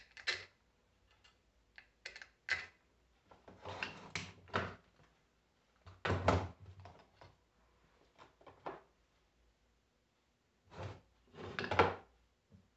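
Irregular metallic clunks and scrapes from hand work on a Prestolite starter motor as its solenoid is fitted, a knock every second or two, the loudest group near the end.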